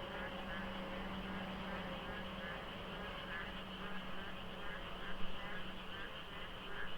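A dense chorus of frogs croaking over one another in quick repeated calls, so thick that the number of frogs is hard to judge. Under it runs a steady low hum.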